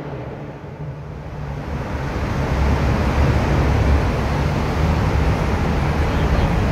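Traffic in a road tunnel: a steady low engine drone over road and tunnel noise, growing louder about two seconds in and then holding steady.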